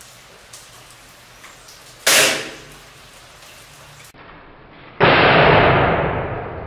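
Break-barrel air rifle fired once about two seconds in, a sharp crack that dies away quickly. About five seconds in comes a second, duller report that fades more slowly over a second and a half, with a light patter of rain beneath throughout.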